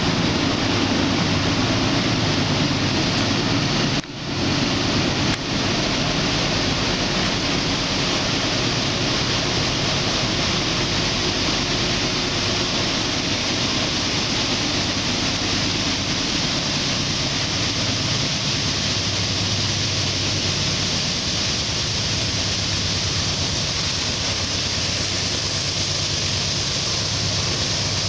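Norfolk Southern GE Dash 9 diesel locomotives pulling a freight train upgrade and drawing near: a steady engine drone under a constant hiss. The level drops out briefly about four seconds in.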